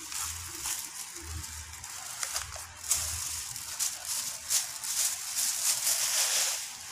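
Thin plastic bag crinkling and rustling in irregular bursts as it is handled around a potted sweet basil plant, fading near the end.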